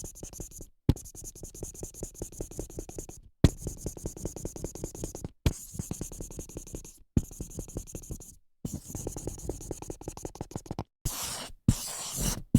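Marker writing on a whiteboard, heard as a series of separate takes with brief dead-silent gaps between them. Each take opens with a sharp click, followed by rapid scratchy strokes. The last couple of takes near the end are shorter and hissier.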